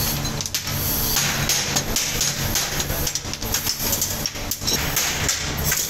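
Steady hissing machinery noise with a low hum, under irregular clinks and knocks of metal motorcycle drum brake shoes and their springs being handled on a metal bench.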